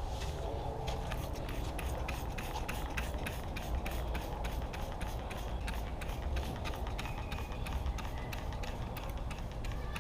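Scrubbing strokes on the boat's deck to lift dried fish blood and grime: quick rubbing strokes several times a second, over a low rumble of wind on the microphone.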